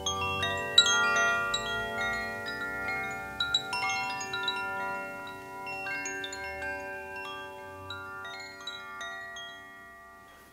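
Wind chimes ringing: many struck notes overlap and ring on, dying away gradually toward the end.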